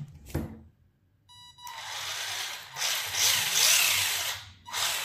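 HSP Flying Fish 1/10 RC drift car's brushed electric motor and gear drivetrain spinning the wheels in the air under throttle. A brief high tone comes first, then two long bursts of whirring with the pitch rising and falling, the second starting near the end. It is the car's first power-up test, and the owner finds it certainly not powerful.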